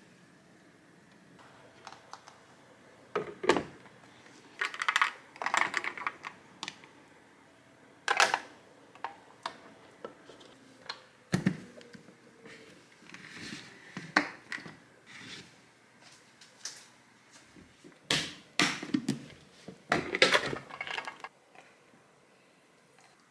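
Plastic Greek-yogurt strainer container being handled: irregular clicks and knocks of its clip-on lid and plastic parts set on and pressed against a counter. The clicks come in clusters, loudest twice near the middle and again near the end.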